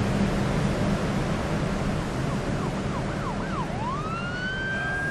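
Emergency vehicle siren over a steady rumble of traffic: faint quick yelping sweeps start about halfway through, then a wail rises near the end and holds on a high note.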